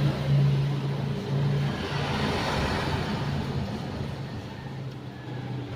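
Car engine sound: a steady low hum with uneven breaks, fading a little toward the end.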